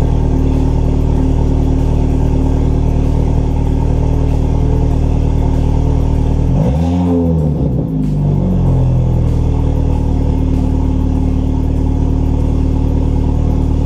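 Volkswagen Mk6 GTI's turbocharged 2.0-litre four-cylinder idling steadily, fitted with a new aftermarket catted downpipe. About six and a half seconds in, it gives one quick rev that rises and falls back to idle within about two seconds.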